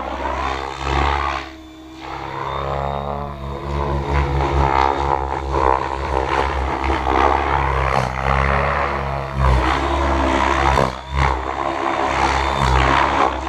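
Mikado Logo 690 SX electric RC helicopter flying aerobatics. Its main rotor, spinning at about 2050 rpm, gives a steady low buzz, and the pitched whine from the rotor and motor rises and falls as the helicopter swoops about. The sound drops away briefly twice, near two seconds in and near eleven seconds.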